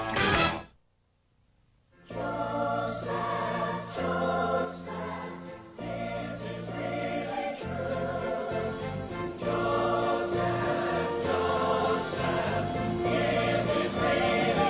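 Music with choir-like voices holding sustained chords that change every second or two, beginning after about a second of silence, two seconds in.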